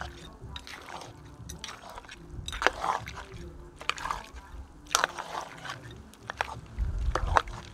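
A metal spoon stirring a thick curry in a metal pot: wet sloshing of the gravy, with irregular clinks and knocks of the spoon against the pot.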